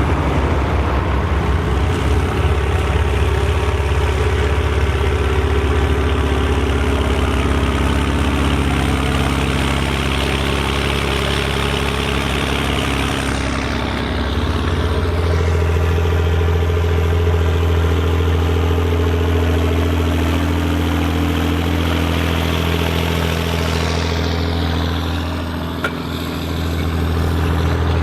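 Volvo BM tractor's diesel engine running steadily, its pitch stepping up about halfway through. The sound dips briefly near the end.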